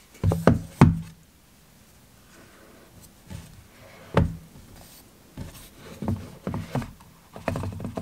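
A cardboard smartphone box handled on a wooden tabletop: a few sharp knocks as it is turned over and set down, a single knock a few seconds later, then a run of taps and rubbing as the lid is worked loose.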